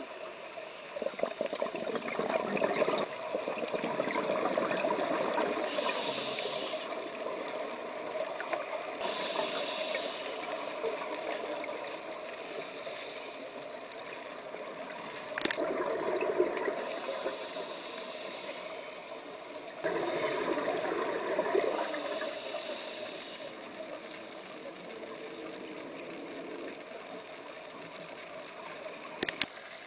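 Scuba diver breathing through a regulator, heard underwater: hissing inhalations alternating with louder bubbling exhalations, several breaths in a slow cycle. A sharp click sounds about halfway through and another near the end.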